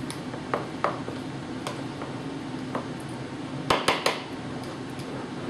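Metal fork clinking and scraping against a glass mixing bowl while walnuts are mashed into a soft cream cheese mixture. There are a few scattered light taps, then three sharp clinks close together about four seconds in.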